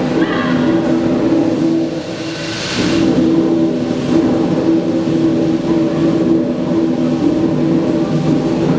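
The 1905 Davy Brothers three-cylinder single-expansion reversing steam engine running under steam, with a steady rumble from its cylinders and motion. It drops back briefly about two seconds in, then picks up again with a rush of steam hiss.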